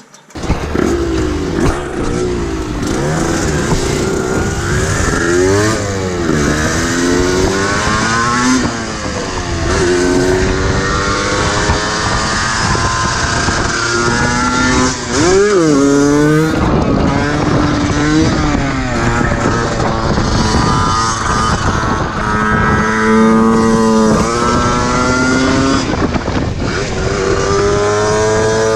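Yamaha DT 125 single-cylinder two-stroke engine revving hard under way, its pitch climbing and dropping back again and again as the bike accelerates through the gears.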